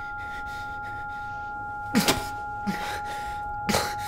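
A steady high two-note tone drone over a low hiss, broken by two sharp sudden sounds, one about two seconds in and one near the end, with a softer one between them.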